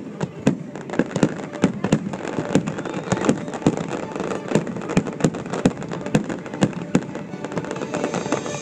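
Aerial fireworks going off in quick succession, an irregular volley of sharp bangs several times a second with no let-up.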